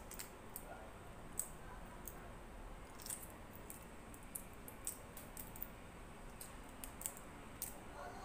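A person quietly chewing food close to the microphone, with faint, irregular wet mouth clicks and smacks.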